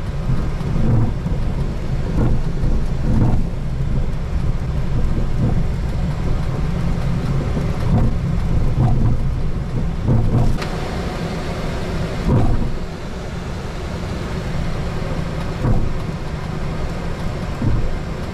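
Boeing 737 cockpit noise while taxiing: a steady low rumble with a few brief knocks.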